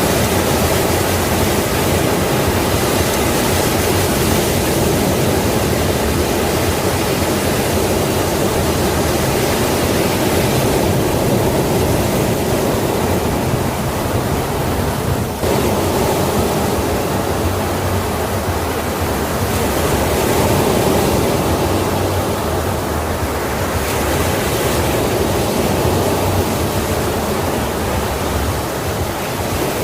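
Sea waves breaking on a shore: a dense, continuous rush of surf whose hiss slowly swells and eases every several seconds.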